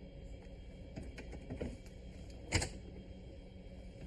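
Plastic clicks and knocks as a coffee machine's ingredient hopper is released by its tab and pulled out, a few light clicks and one sharper knock a little past halfway, over a steady low hum.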